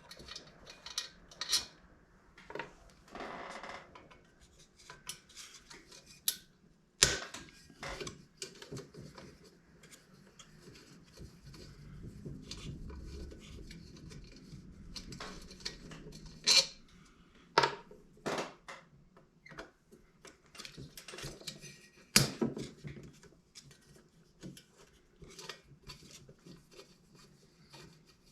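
Hand tools and small metal parts of a diesel heater clinking and clicking, irregular sharp knocks with a stretch of softer scraping and rustling partway through, as the heater is taken apart by hand.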